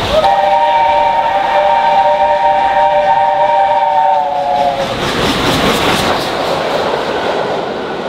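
Mainline steam locomotive whistle sounding one long chord of several steady notes, which stops about five seconds in. The train then rushes past with a clatter of rapid wheel clicks and fades away near the end.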